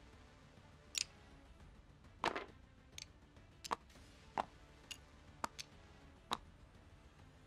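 A series of light clicks and taps, about nine spaced irregularly, the loudest about two and a quarter seconds in, over a faint steady background.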